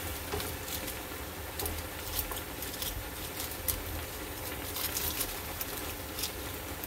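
Wooden spatula working bean thread noodles down into a wok of simmering soup: scattered soft, irregular clicks and taps against the pan over a low steady hum.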